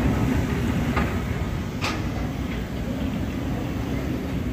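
Steam locomotive heard at close range: steam hissing from a jet beside the driving wheels, over a low steady hum. A sharp metallic click comes about two seconds in.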